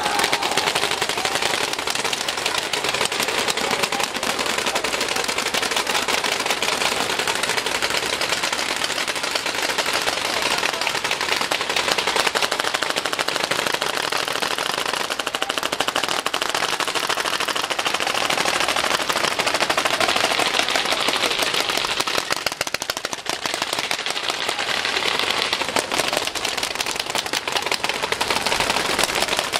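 Many paintball markers firing at once in dense, continuous rapid fire: an unbroken crackle of overlapping shots.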